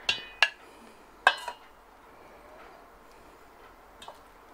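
A metal serving spoon clinking against a stainless steel mixing bowl while scooping macaroni salad: three sharp clinks with a short metallic ring in the first second and a half, then a faint tick near the end.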